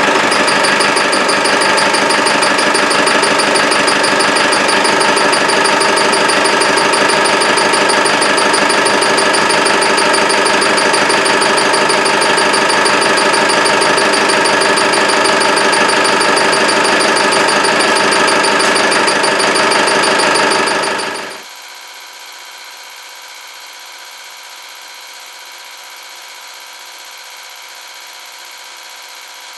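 Land Rover 300Tdi four-cylinder turbo diesel engine running at idle with a steady rhythmic chirping tick, a noise that does not come from the timing belt. The engine cuts off about twenty seconds in, leaving a fainter steady hum.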